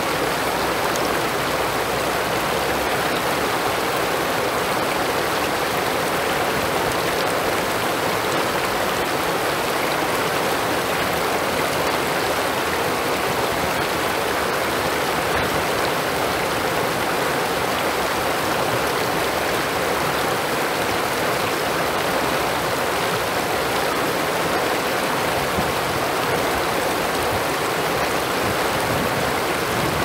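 Shallow river water rushing steadily over rocks and through the gaps between stone stepping stones.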